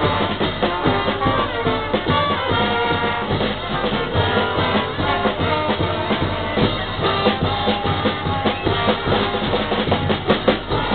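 Band music with drums and brass playing a steady beat, with a single sharp crack near the end.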